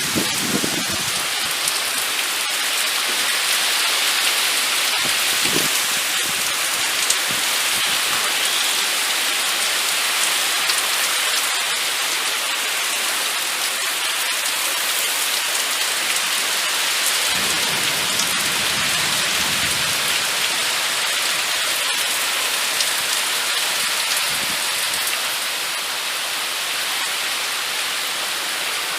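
Steady moderate-to-heavy rain falling, with scattered drips. A brief low rumble of distant thunder comes about two-thirds of the way through.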